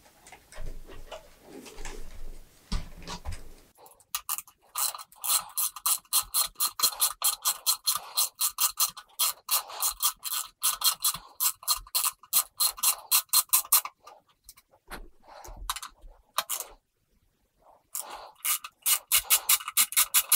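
Socket ratchet with a T10 Torx bit clicking in fast, even runs as it undoes small screws from a car radio's metal case: one run of about ten seconds, then after a pause another starting near the end. Before the first run come soft rubbing and knocks of the radio being turned onto its side.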